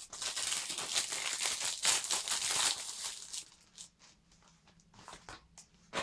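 Clear plastic packaging bag crinkling and rustling as a faux-leather e-reader case is pulled out of it, stopping after about three and a half seconds. A few light handling clicks follow, with a sharper click at the very end.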